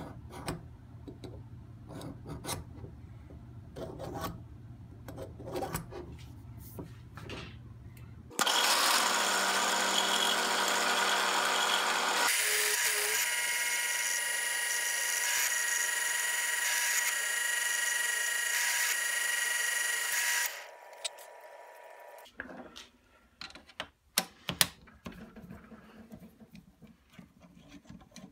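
Caliper jaws scraping scribe lines across layout-dyed aluminium stock in short scratches. Then a drill press runs loud and steady while drilling a hole in the aluminium block held in a vise, the sound changing abruptly partway through, until it cuts off and winds down. Near the end come a few sharp clicks and knocks as metal tools are handled.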